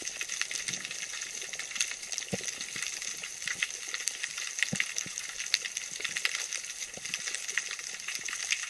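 Underwater ambience picked up through a camera's waterproof housing: a steady hiss with a dense, irregular crackle of sharp clicks.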